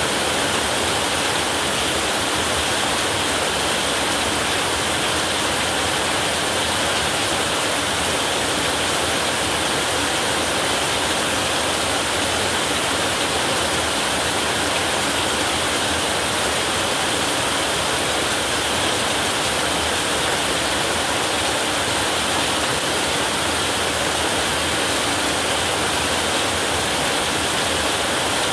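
Heavy rain falling steadily on a roof, an even unbroken hiss with no thunder in this stretch.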